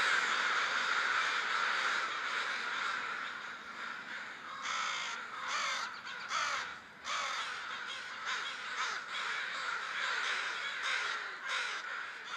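A large flock of American crows cawing together in a noisy pre-roost gathering. Many calls overlap into a constant din, with a few separate caws standing out in the middle.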